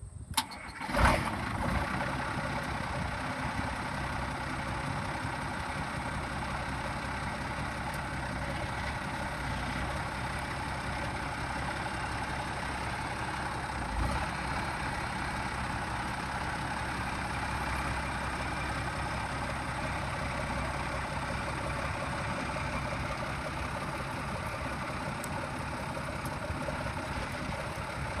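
1979 Case 2090 tractor's six-cylinder turbocharged diesel engine starting, catching with a short loud burst about a second in, then idling steadily.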